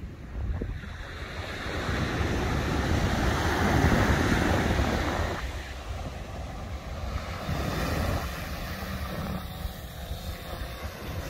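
Surf washing up the beach with wind buffeting the microphone; the rush swells to its loudest about four seconds in, then drops away abruptly and settles.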